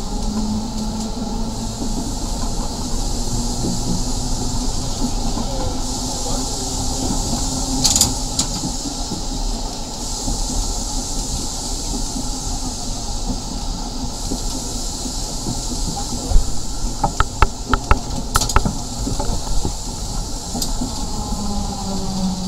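1934 Nesa 929 tram running along the track: a steady hum and rumble of motor and wheels on the rails, with a hiss over it. About two-thirds of the way through come a quick run of sharp clicks from the wheels.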